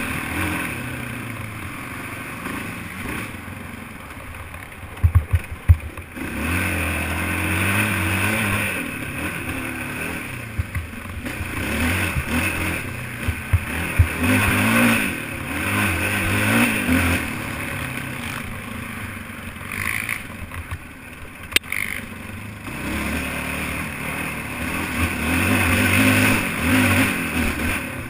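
Racing quad (ATV) engine revving up and falling back again and again as it is ridden hard off-road, with a few sharp knocks and clatter, a cluster about five seconds in and more around the middle.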